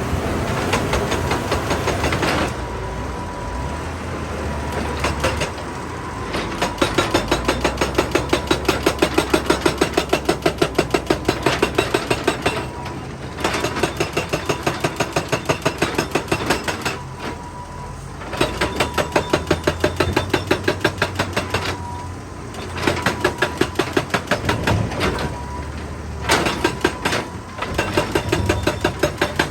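Excavator-mounted hydraulic rock breaker hammering rock in runs of rapid, evenly spaced blows, about four to five a second, stopping briefly every few seconds, over the excavator's diesel engine running.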